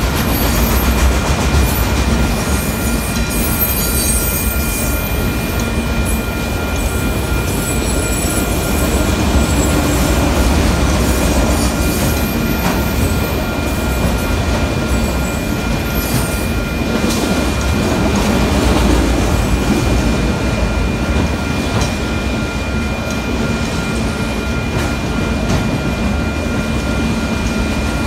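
Freight train of autorack cars rolling past at steady speed: a continuous rumble and rattle of wheels on the rails. Two steady high-pitched tones run through it the whole time.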